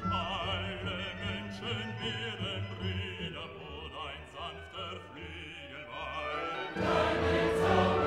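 Background music: a classical piece with a singing voice held in wide vibrato over sustained accompaniment. It swells fuller and louder near the end.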